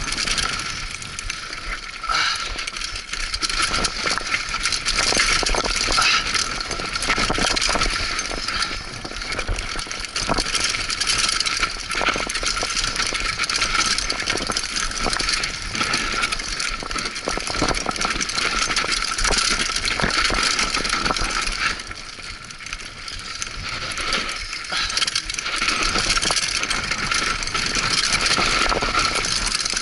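Mountain bike descending a rough, rocky dirt trail: continuous rattle and clatter of the bike and its tyres over loose stones and gravel, with a steady high whine underneath. The clatter eases briefly about two-thirds of the way through.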